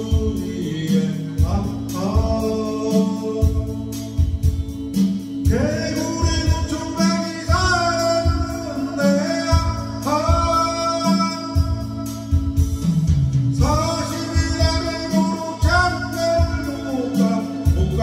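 A man singing over a backing track with a steady beat and guitar.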